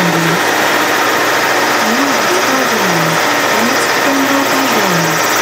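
Tourist flower train running along its route, heard from on board: a steady running noise with a low hum that keeps gliding up and down in pitch.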